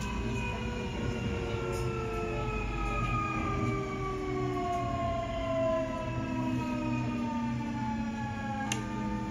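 Nankai 8300 series electric train's traction motors and inverter whining in several tones that fall slowly in pitch as the train slows, over a steady rumble of wheels on rails. A sharp click comes near the end, after which the whine's tones shift.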